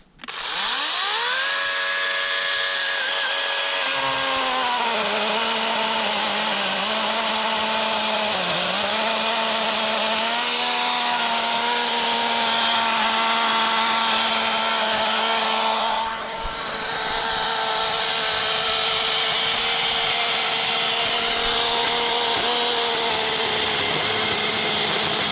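Harbor Freight LYNXX 40V cordless electric chainsaw spinning up with a quickly rising whine, then cutting wood: its pitch drops as the chain bites and stays lower and wavering under load. There is a brief letup about two-thirds of the way through.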